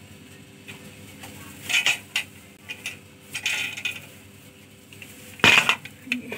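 Short metallic clinks and clatters of kitchen pots and utensils around an open pressure cooker, in a few brief bouts, with one louder clatter near the end.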